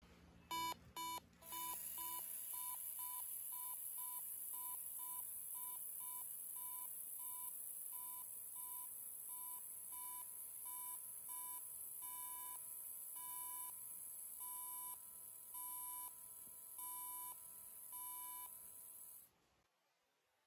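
Electronic buzzer on an obstacle-sensing prototype beeping repeatedly, with a steady high hiss underneath. The beeps start at about two a second and slow to about one a second as the obstacle moves away. Both stop about 19 seconds in, once nothing is within range.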